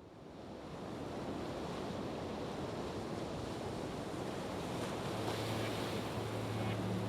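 A steady rushing noise fades in, with a low hum entering about five seconds in and growing.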